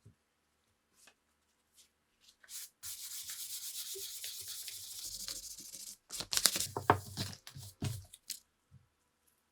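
Hand sanding: about three seconds of steady abrasive rubbing on a part, then a quick run of sharper clicks and knocks as the part is handled.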